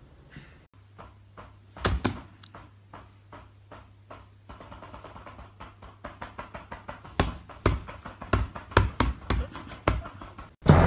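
A quick, irregular series of knocks and taps, a few a second, with a loud pair about two seconds in, growing denser and louder in the second half. A faint steady low hum lies underneath.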